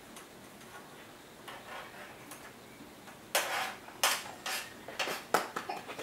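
Clinks and knocks of a utensil and cutting board against a small metal bowl as sliced banana is scraped in. About half a dozen sharp strikes begin roughly three seconds in, after a quiet start.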